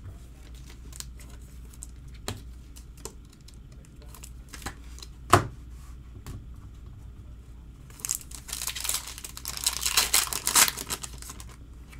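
Foil wrapper of a trading-card pack being torn open and crinkled: a dense crackling rustle for about three and a half seconds near the end. Before it, scattered light clicks and one sharp tap about five seconds in.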